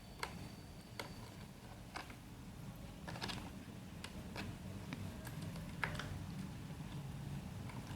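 Small, irregular clicks and ticks of a screwdriver working the back-cover screws of a laptop, roughly one a second, over a low steady hum.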